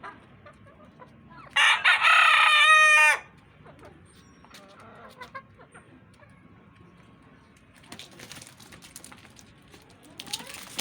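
A rooster crows once, a loud call of about a second and a half that starts about a second and a half in and ends in a falling tail. Faint hen clucking and scattered small sounds follow.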